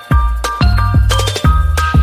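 Background music: a bright melody over a deep bass line, with a steady beat of about two hits a second.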